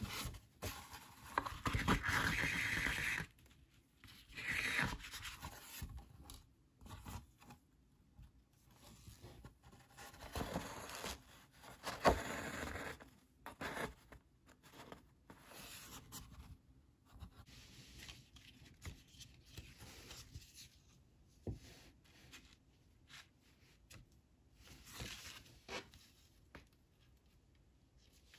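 Sheets of heavy cotton printmaking paper rustling and sliding as they are handled and hand-sewn with a needle and linen thread. The handling is loudest in the first three seconds and again from about ten to thirteen seconds, with a sharp tap near the middle, then softer scattered rustles and thread pulls.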